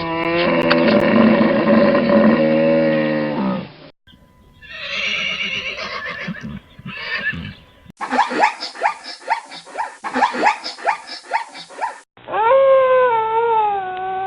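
A series of different animal calls, one short recording after another, changing about every four seconds: a held call, a rougher broken call, a quick run of repeated notes, then a long call falling in pitch near the end.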